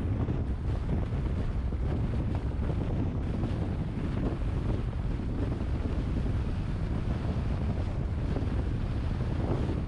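Steady rumble of a moving car's wind and tyre noise, with wind buffeting the microphone.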